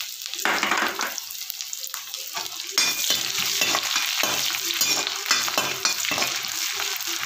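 Sliced onions sizzling in hot oil in a kadhai while a perforated metal spoon stirs them in repeated strokes. The stirring and sizzling grow louder from about three seconds in.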